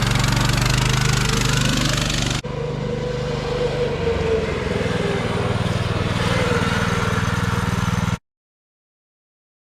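Massimo Warrior MB200 mini bike's small single-cylinder four-stroke engine running, with an abrupt jump in the sound about two and a half seconds in. The sound cuts off to dead silence about eight seconds in.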